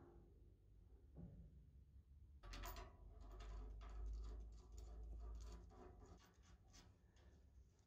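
Faint handling of the guillotine's metal parts by hand. After a quiet start, a run of small clicks and scrapes begins about two and a half seconds in, over a low rumble.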